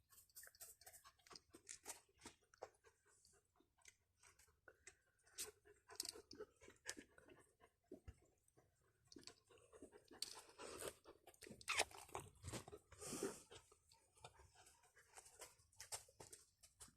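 A litter of alabai (Central Asian Shepherd) puppies feeding with their mother: many faint, quick wet clicks and smacks, busiest and loudest from about ten to thirteen seconds in.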